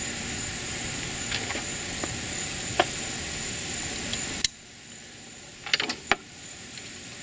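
Steady high buzz and hiss of insects outdoors. About halfway through, the background drops suddenly, and a few sharp clicks follow from hand work taking parts off a MerCruiser carburetor.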